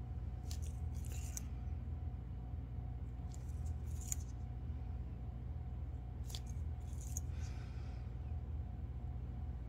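Steady low hum with a faint steady tone over it, broken by three pairs of short soft hisses, each pair about three seconds after the last.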